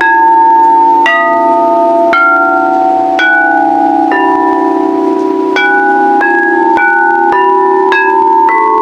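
Singing bowls struck one after another at different pitches, about once a second. Each strike rings on over a steady, wavering hum of the bowls' low tones.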